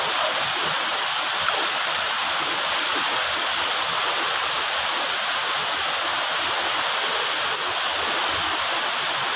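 Waterfall pouring steadily: a constant rushing hiss of falling water.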